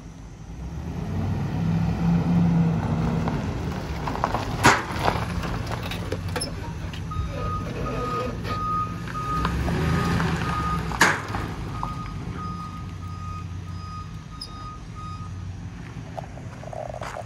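Ford F350's 6.2 L gas V8 running, swelling louder twice. Two sharp clunks partway through. A vehicle back-up alarm beeps in an uneven pattern through the middle of the stretch.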